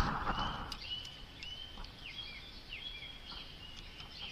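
A bird calling in the background: a series of short whistled notes, repeated roughly once or twice a second, some ending in a small downward slide. A brief rustle at the start.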